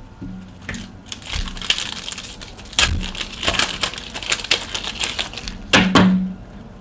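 Foil wrapper of a trading card pack being torn open and crinkled in the hands, a rapid irregular crackling with a louder crack about three seconds in.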